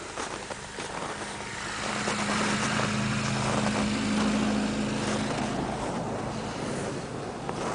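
A motor vehicle passing by, its engine hum and tyre noise swelling to a peak about four seconds in and then fading away.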